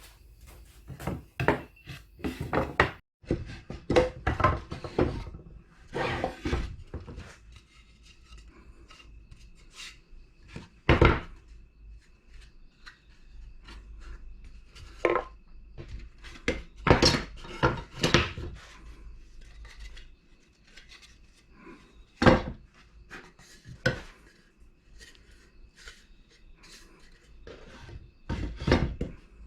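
Irregular knocks and clatters of hard objects being handled and set down, a few louder sharp knocks among them, over a faint steady hum.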